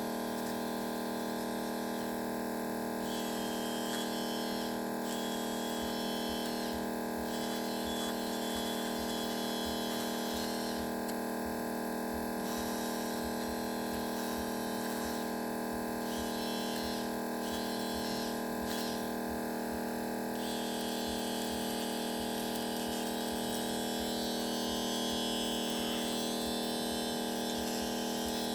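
Steady electric machine hum from the repair bench, a motor-like drone with several even tones that holds at one level, with faint intermittent scraping of a hand tool against the phone over it.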